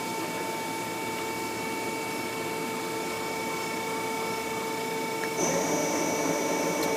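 Okuma & Howa ACT-3 CNC lathe spindle running in low gear and spinning its three-jaw chuck: a steady mechanical whine with two held tones. About five seconds in it grows louder and a high thin whistle joins it.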